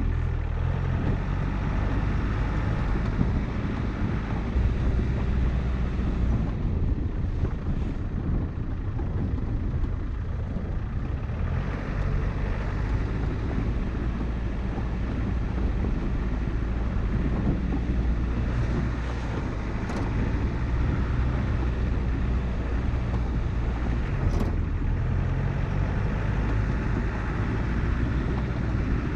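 1995 Land Rover Discovery's 200Tdi 2.5-litre turbodiesel four-cylinder running steadily as the truck drives slowly along a dirt track, with wind noise on the microphone. Two sharp knocks come in the second half.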